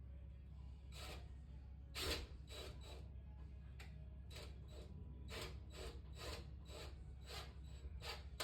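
A run of short, even rubbing strokes on a hard surface, roughly two to three a second, starting about a second in, like hand work on wood.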